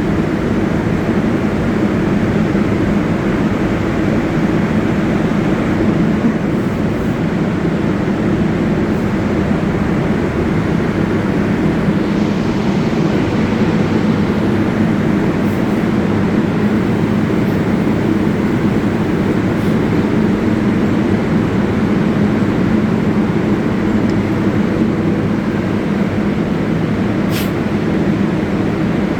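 New York City subway train on the 7 (IRT Flushing Line), a steady loud running noise with a constant low hum and no breaks. A single brief click comes near the end.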